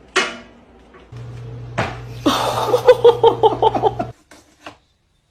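A short sharp cry, then laughter in a quick run of pulses, about five a second, over a low steady hum. The laughter cuts off abruptly about four seconds in.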